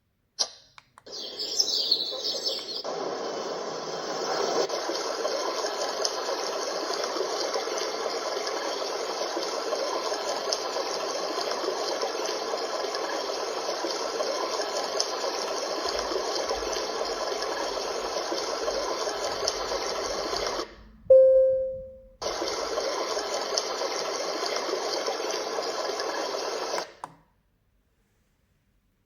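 Steady electronic white-noise-style rushing sound played through the alarm clock lamp's small speaker. About 21 seconds in it stops for a single short beep, then resumes, and it cuts off abruptly near the end.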